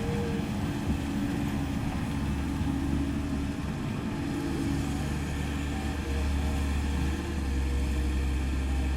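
Komatsu PC130F excavator's diesel engine running steadily, growing somewhat louder about six seconds in.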